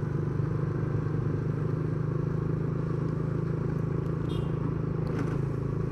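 Steady hum of a vehicle's engine with road noise while travelling along a busy road, holding an even pitch and level.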